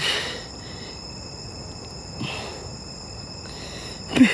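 Night insects such as crickets chirring steadily in two high tones, with a couple of brief hissy swishes.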